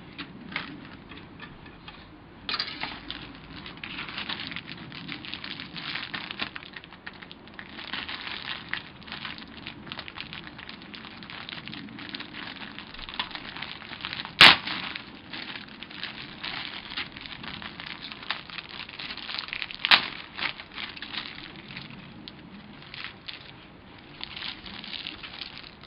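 Plastic bags crinkling and rustling as the plastic kit sprues are handled, with two sharp knocks, a loud one about halfway through and a smaller one about six seconds later.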